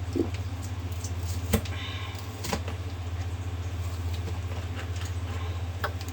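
A steady low hum with a few light knocks and clicks and a short squeak about two seconds in, from handling a still-frozen chicken in the kitchen.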